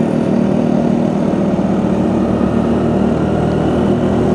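Scooter engine running steadily at cruising speed, with wind and road noise from riding.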